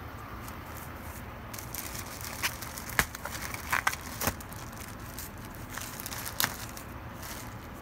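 Thin clear protective plastic seat covers crinkling as a hand handles them, with scattered sharp crackles, the loudest about three seconds in.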